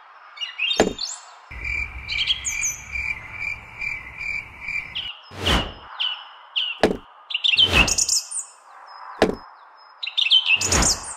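Birds chirping, with a steady rapid trill through the first half and high, quick falling notes throughout. About six short sudden sounds come in between, every second or two.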